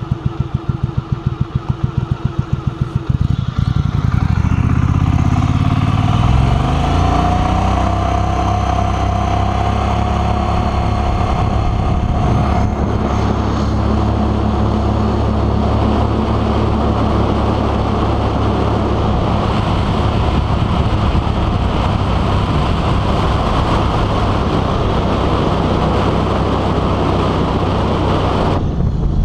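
Mud Buddy Sport V 44 hp surface-drive mud motor idling with a fast, even pulse, then throttled up about three seconds in. Its pitch rises for a few seconds and settles into a steady run as the boat gets under way.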